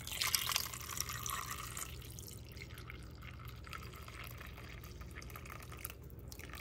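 Chicken broth being poured from a pot into a glass food container: a loud splash and gush at first, then a softer steady pour that stops near the end.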